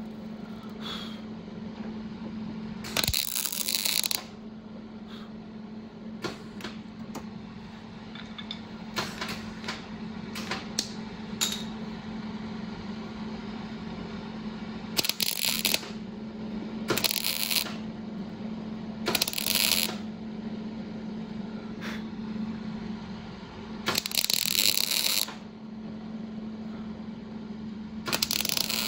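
Bodywork tools at work over a steady low hum: about six short bursts of hiss, each about a second long, and scattered light metallic clicks and clinks between them.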